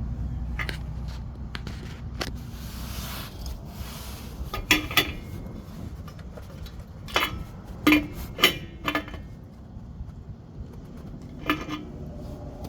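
A handful of sharp, irregular metal clinks from a wrench working a truck air-line fitting, after a low rumble that fades over the first few seconds.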